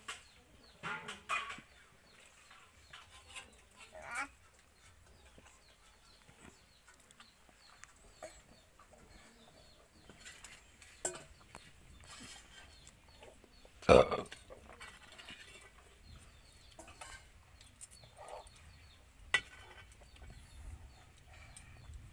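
Chickens clucking now and then, with scattered small clicks and one loud sharp knock about two-thirds of the way through.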